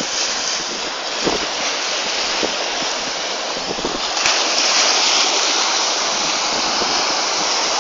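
Sea surf breaking on a beach: a steady hiss of waves, a little louder from about four seconds in.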